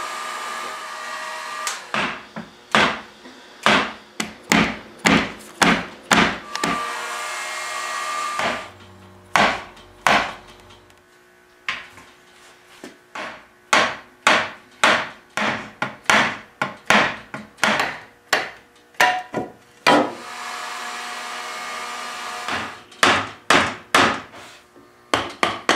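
Mallet blows knocking on the glued arm joint of a teak chair, sharp wooden knocks in runs of roughly two a second, to drive the joint apart after softening the glue with heat. A heat gun blows steadily at the start and again about twenty seconds in.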